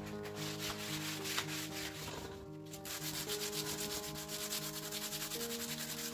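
Hand sanding of a white-painted oak bedside table: an abrasive pad rasps over the flat wooden top in quick back-and-forth strokes, becoming steadier and denser about halfway through. Soft background music plays underneath.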